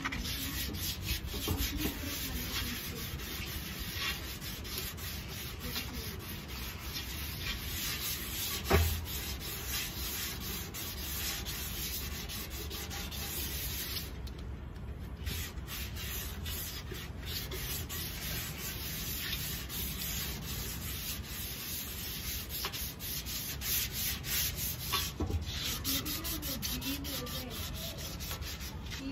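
Wet sandpaper rubbed back and forth by hand over a painted steel motorcycle fuel tank, a steady scratchy sanding with a short pause about fourteen seconds in. A single thump about nine seconds in.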